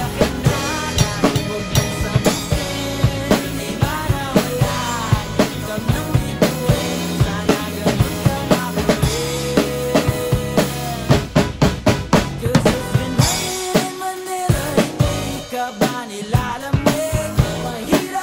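Acoustic drum kit played along with a recorded pop band track: kick, snare and cymbal strokes over pitched melody lines. About two-thirds of the way through comes a fill of rapid strokes, and then the track's low end drops out briefly.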